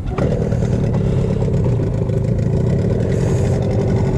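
A boat's outboard motor throttles up a fraction of a second in and then runs steadily under power.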